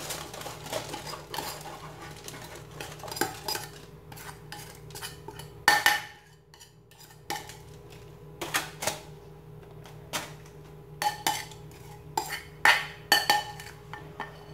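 A spoon clinking and scraping against a ceramic bowl in irregular knocks while a tempe and grated-coconut mixture is spooned into a foil-lined bowl. The loudest knock comes about halfway through, and a quicker run of clinks follows near the end.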